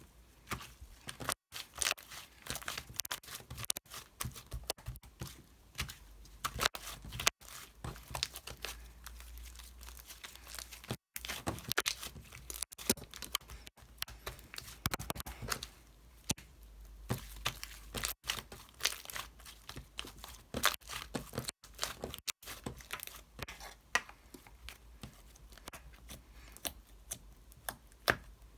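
Close-up crinkling and tearing of a thin material handled by hand, a dense, irregular run of sharp crackles and clicks with no pauses longer than a moment.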